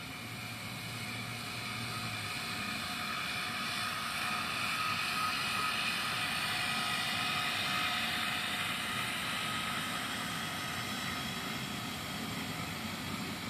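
Motors of a radio-controlled model ship running under way, a steady whine that grows louder toward the middle and eases off again.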